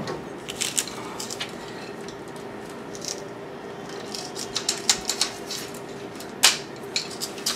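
Window screen frame rails and plastic corner keys being handled and pushed together: scattered light clicks and rattles, with one sharper click near the end.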